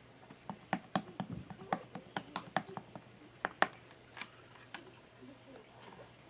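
Clear slime with air bubbles trapped in it being squeezed and pressed by hand, giving a run of sharp, irregular clicks and pops that stop about five seconds in.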